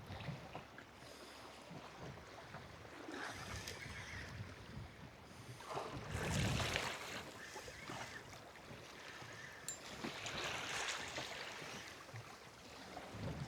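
Wind blowing over the microphone and water slapping against a small boat, swelling louder twice.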